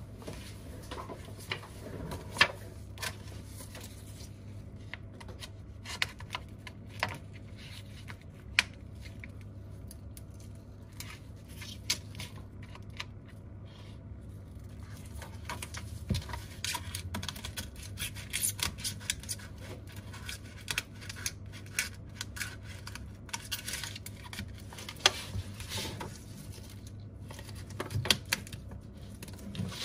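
Close-up handling noise of repair work on a cracked tablet screen: scattered sharp clicks and taps, then, from about halfway, busier crinkling and peeling of a plastic film sheet. A low steady hum sits underneath.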